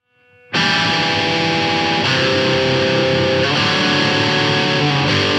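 Rock song intro: distorted electric guitar sounding sustained chords that change every second or so, starting abruptly about half a second in.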